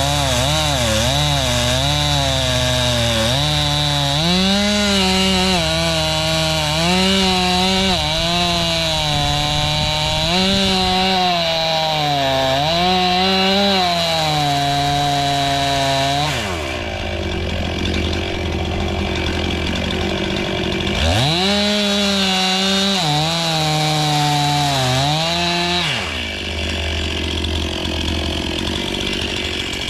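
Chainsaw cutting wood, its engine pitch repeatedly dipping under load and picking back up. About 16 s in it drops to idle, revs up again about 21 s in for a few more seconds of cutting, then drops back to idle near the end.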